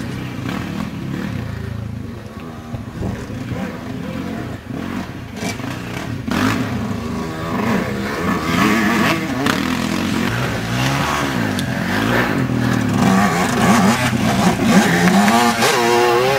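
Enduro dirt bikes riding a course, their engines revving up and down over and over as the riders open and close the throttle. They get louder over the second half as a bike comes close over the tyre obstacle.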